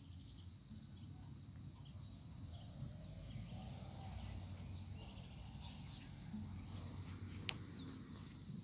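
Steady high-pitched chorus of insects shrilling without a break, over a low rumble, with a single sharp click near the end.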